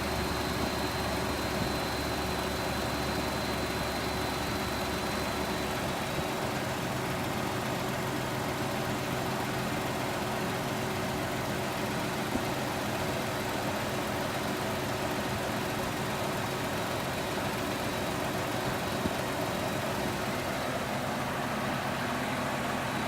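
2018 Ford Expedition's 3.5-litre twin-turbo EcoBoost V6 idling steadily at cold start, with the tick the owner is recording. The deepest rumble eases about six seconds in.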